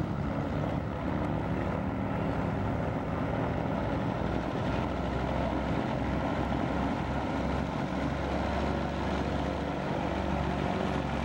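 Both piston engines of a twin-engine propeller warbird running steadily at taxi power: a continuous low engine rumble with propeller noise.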